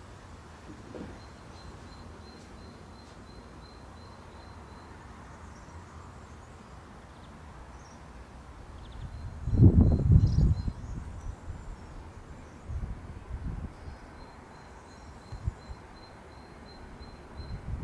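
Wind blowing through grass, with gusts buffeting the microphone; the strongest gust comes about halfway through, with smaller ones later. Faint high chirps repeat about four times a second in the background.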